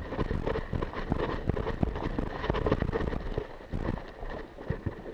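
Irregular knocks and thuds, several a second, over rustling and jostling: a player running with gear knocking against a body-mounted camera.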